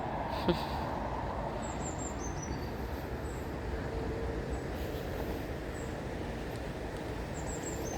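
Steady outdoor background rumble with a few short, high bird chirps sliding downward, a small cluster about two seconds in and again near the end.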